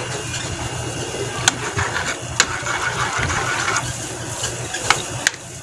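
A metal spoon scrapes and clinks against a pan of pork picadillo as it is stirred, giving about four sharp clinks over a steady low hum.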